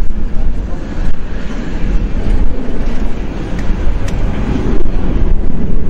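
Boeing 737 jet engines at takeoff thrust during the takeoff roll: a steady, loud low rumble.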